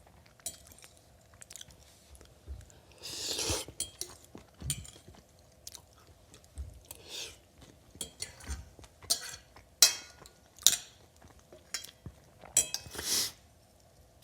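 A person eating a plate of dry stir-fried instant noodles with bacon and egg: chewing and biting, utensils clicking against the dish, and two longer noodle slurps, one a few seconds in and one near the end.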